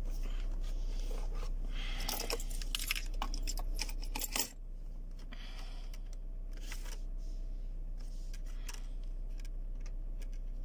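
Handling noise from a hand-held phone: a run of small clicks, rattles and rubbing, busiest about two to four and a half seconds in and ending with a sharp knock, then a few scattered clicks. A steady low hum runs underneath.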